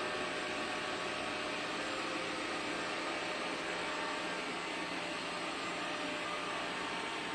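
Minibot X5 robot vacuum running, a steady whirring motor and fan noise with a faint hum.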